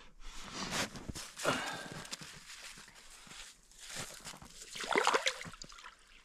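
Boots crunching and shifting in packed snow, then water sloshing in an ice-fishing hole as a hand lowers a small fish into it to release it. The sloshing is loudest about five seconds in.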